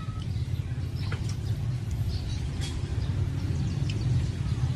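Hino F20C V8 diesel engine idling steadily, recharging the air tanks between drain-outs, with a few faint clicks.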